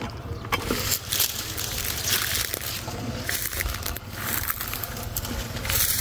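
Footsteps pushing through dense dry undergrowth: leaves and stems rustling and crunching in irregular swishes and crackles, over a steady low rumble.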